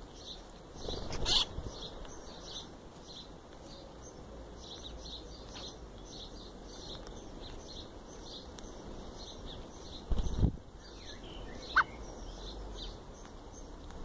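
Small birds chirping over and over, many short high notes. Two loud low thumps cut through, about a second in and again after about ten seconds, and a single short sharp call comes near the end.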